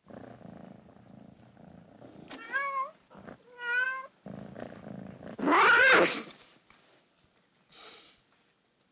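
Cat sounds: a low purr, broken by two short meows. The purring resumes, then a loud drawn-out meow that rises and falls comes about halfway through, and a faint short one near the end.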